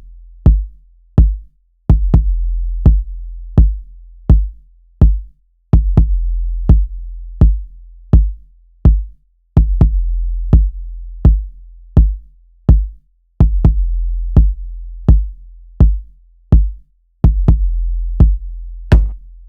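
Electronic kick drum from Maschine's drum synth looping a syncopated pattern, about two hits a second, each a sharp click with a long, deep sub-bass tail. Near the end, brighter higher-pitched drum hits join in.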